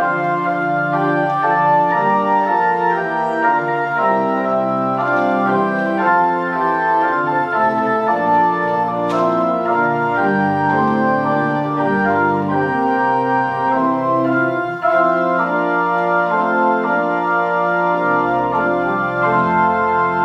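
Church organ playing the offertory in held chords, the notes changing every second or so. A single sharp click about nine seconds in.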